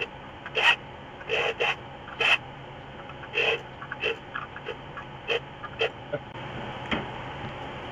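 Electric drill run in about a dozen short trigger bursts, each a fraction of a second, with its bit against a metal muffler end cap. A steady hiss comes up in the last second or so.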